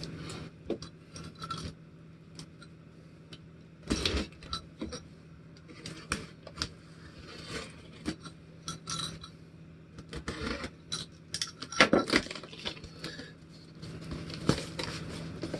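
A cardboard shipping box being opened by hand: tape and cardboard flaps tearing and crackling in an irregular string of short clicks and rustles, with louder snaps about four seconds in and near twelve seconds.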